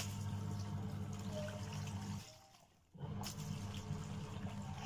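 Top-loading washing machine agitating a load of laundry: a low motor hum with soapy water sloshing. It runs in strokes, stopping briefly a little after two seconds in, then starting again.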